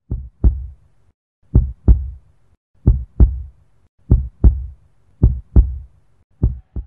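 Heartbeat sound effect: six double 'lub-dub' beats, each a pair of deep thumps, coming about once every 1.2 seconds, the last pair a little softer.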